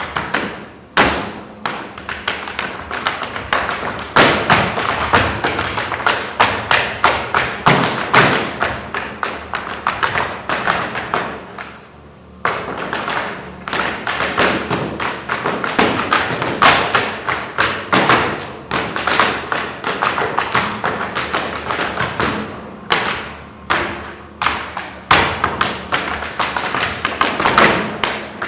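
Dancers' percussive footwork: fast rhythmic stamping and tapping on a stage floor in dense runs of sharp thumps. There is a short pause about twelve seconds in, then it picks up again.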